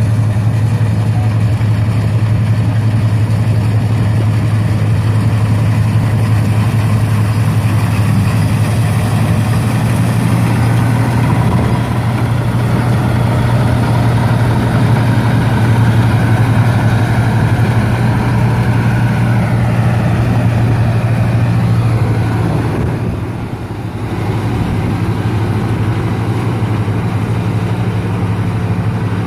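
Engine of a New Holland farm machine running steadily while harvesting wheat, with a strong low hum. The sound dips briefly about 23 seconds in, then carries on steadily.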